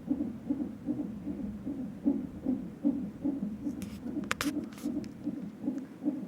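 Fetal heart monitor's Doppler speaker playing an unborn baby's heartbeat as a fast, steady whooshing pulse. A few sharp clicks come about four seconds in.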